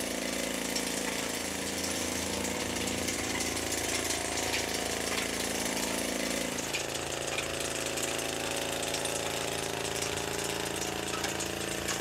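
Small engine of an orchard monorail running steadily as it hauls crates of mikan up its track, with a fast mechanical rattle over the engine note.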